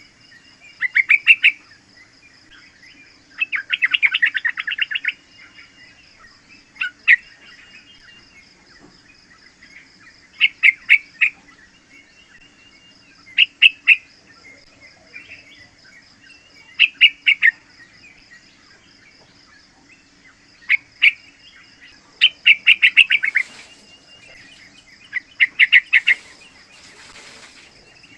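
Young yellow-vented bulbul calling in short bursts of rapid chattering notes, repeated every few seconds, with one longer burst about four seconds in.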